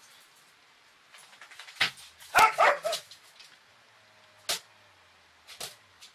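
A dog barking: a quick run of short barks about two seconds in, then two single barks later.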